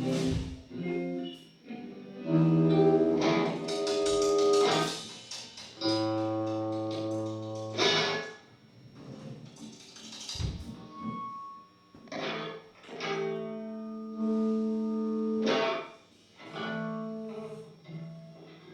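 Guitar strumming chords, one at a time every few seconds, each left to ring and fade.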